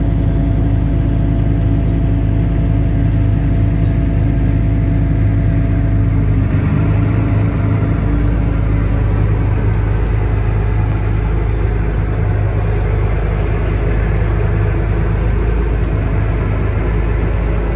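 John Deere 8410 tractor's six-cylinder diesel engine running steadily. About six and a half seconds in, a rushing noise joins it.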